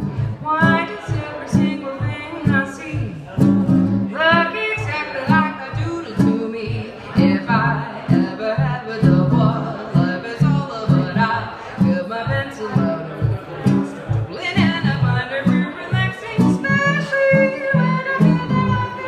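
A woman singing a jazz tune, accompanying herself with plucked chords on a frame-bodied silent guitar.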